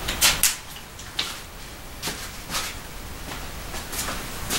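A few irregular sharp clicks and crinkles from a plastic water bottle being handled, the two loudest just after the start.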